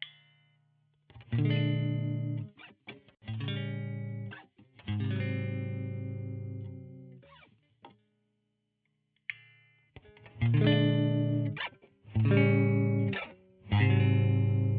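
Squier Vintage Modified Jaguar electric guitar played through an effects-laden amp. It strikes a phrase of three ringing chords, pauses briefly, then repeats the phrase.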